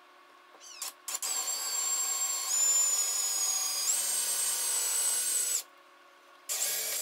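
Cordless drill given a couple of short trigger taps, then running steadily for about four seconds, its whine dropping and then rising in pitch. It stops and starts again near the end. It is boring a small pilot hole into a wooden cabinet door with the tip of a cabinet screw chucked in as the bit.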